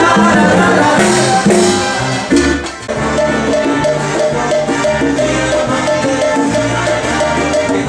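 Latin music in a salsa style from a live band with acoustic guitar and drums. The sound dips and changes abruptly about two and a half seconds in, then the music goes on.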